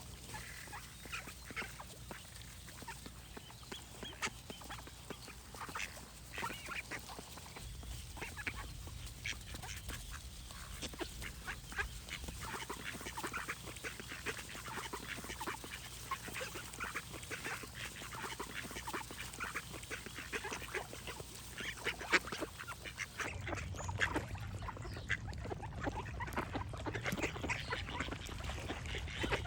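A group of ducks quacking, many short calls coming thick and overlapping, with a low rumble underneath that grows louder near the end.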